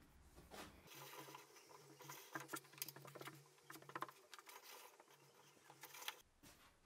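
Small hand-operated screw press being turned down onto a steel pin and collar: faint, irregular clicks and light scraping of metal parts.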